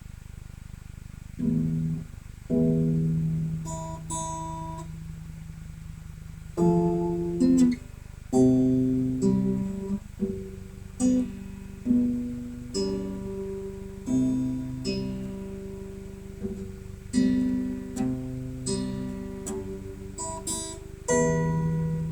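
Acoustic guitar played as single chords, each struck and left to ring out before the next, about a dozen over the stretch with short pauses between them, as in working through a song's chords at rehearsal.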